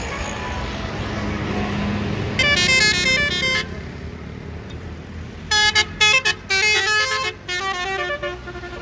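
A bus's basuri telolet multi-tone air horn playing a short melody of loud stepped notes about two and a half seconds in. It plays again from about five and a half seconds, this time in short, choppy notes. Bus engine and traffic noise run underneath.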